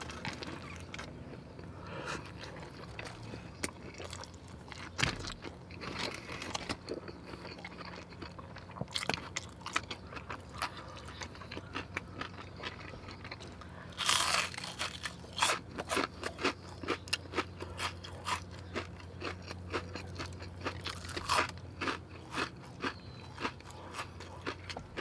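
Close-miked eating of a chili cheese hot dog: a bite at the start, then chewing with many short wet mouth clicks. A louder, noisier burst comes about fourteen seconds in.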